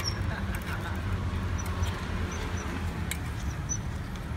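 Two puppies eating dry kibble from a steel bowl, with faint scattered clicks, over a steady low rumble of traffic.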